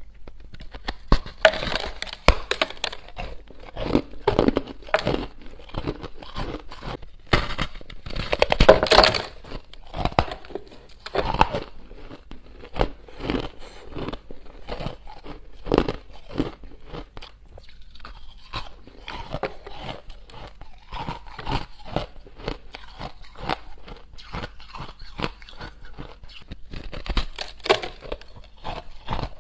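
Close-miked biting and chewing of a block of refrozen crushed ice: a dense run of sharp, crunchy cracks, loudest about nine seconds in.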